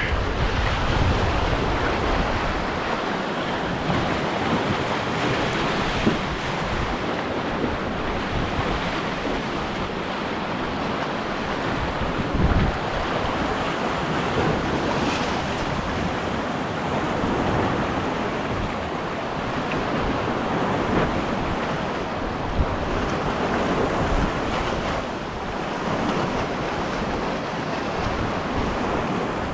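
Sea surf washing steadily, with wind gusting on the microphone.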